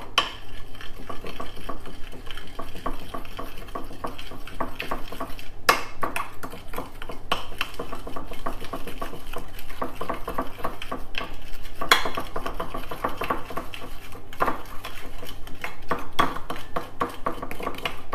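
A metal spoon stirring a thick, sticky marinade in a ceramic baking dish, scraping and clinking against the bottom and sides over and over, with a few sharper knocks.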